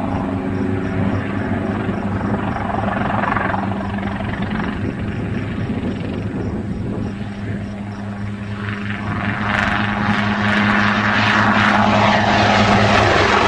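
Helicopter flying close by: a steady hum of rotor and engine, with a rushing noise that grows louder and brighter about nine seconds in.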